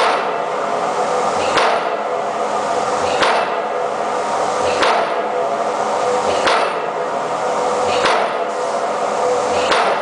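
Impact pile hammer driving an open-ended steel pipe pile, striking about every 1.6 seconds. Each blow is a sharp metallic clang that rings on, over a steady mechanical hum.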